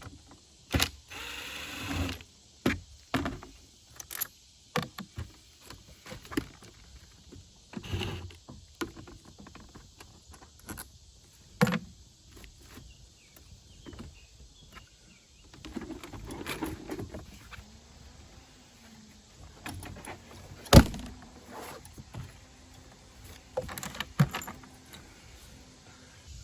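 Scattered clicks, knocks and clatter of hands and tools working the plastic shroud of a Mach 8 RV rooftop air conditioner loose, with one sharp, loud knock about three-quarters of the way through.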